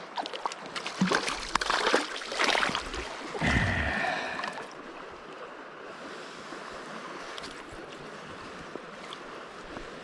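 Trout stream running steadily, with a few seconds of irregular splashing and knocking in the first half.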